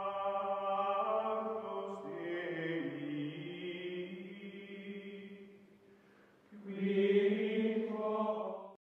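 Outro music of chanted choral voices holding long, slowly shifting notes in two phrases with a short gap about six seconds in; it cuts off abruptly near the end.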